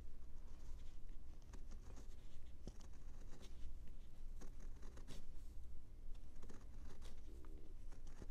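Small thumbnail chisel paring a wood block by hand: a series of short, scratchy slicing cuts at an uneven pace.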